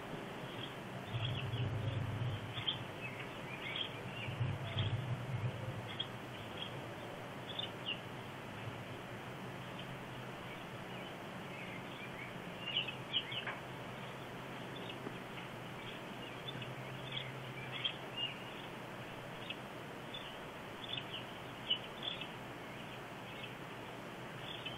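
Outdoor ambience: scattered short bird chirps over a steady background hiss, with a low rumble swelling twice in the first few seconds.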